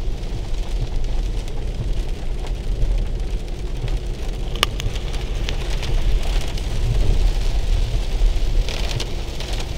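Rain falling on a car's roof and windscreen, heard from inside the cabin over the steady low rumble of the car driving, with one sharp click about halfway through.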